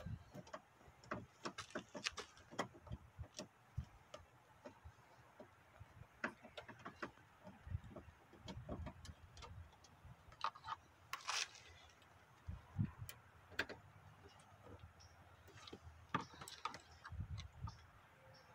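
Faint, irregular light clicks and taps of hands and a tool working at the plastic armrest pull of a truck door panel, with a brief scrape near the middle and a few soft thumps.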